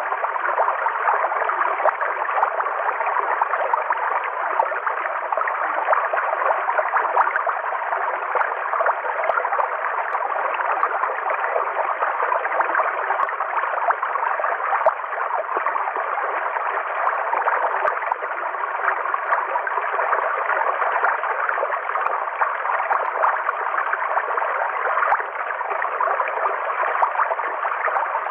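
River water flowing steadily, an even rush of water.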